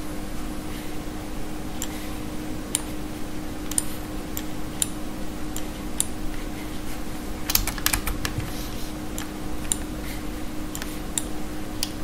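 Scattered clicks from a computer keyboard and mouse, with a quick run of several clicks about seven and a half seconds in. A steady low hum lies underneath.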